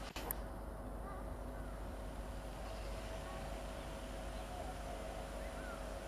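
Faint, steady hum of an approaching EMU electric local train, with birds chirping now and then. A sharp click comes just after the start.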